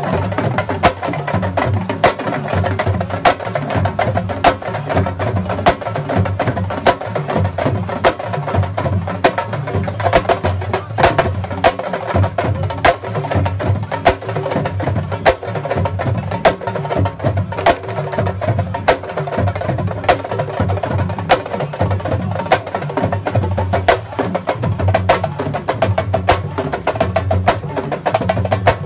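Sabar drum percussion music: fast, dense drumming with sharp slap strokes, running without a break.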